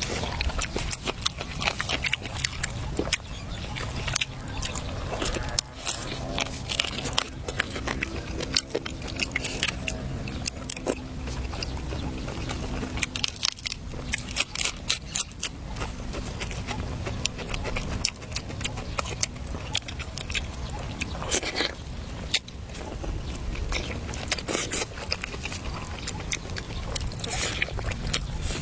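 A person eating: chewing and biting, with many scattered sharp clicks and scrapes.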